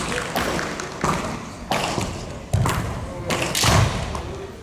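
A series of dull thumps and knocks in a large gymnasium, the heaviest two about two and a half and three and a half seconds in, over faint voices.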